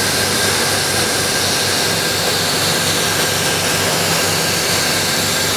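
Flatbed laser cutting machine running while cutting acrylic: a loud, steady rushing air noise over a low hum, with no breaks.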